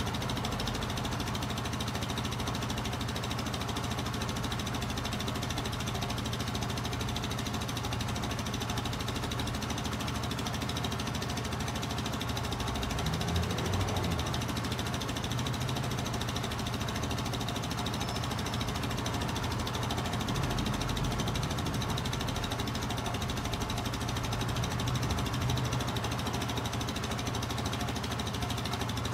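Royal Alloy GP 125 scooter's single-cylinder four-stroke 125 cc engine idling steadily through its stock exhaust, with small swells in level now and then.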